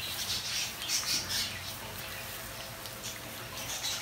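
Pizza rolls deep-frying in hot oil: an irregular crackling sizzle.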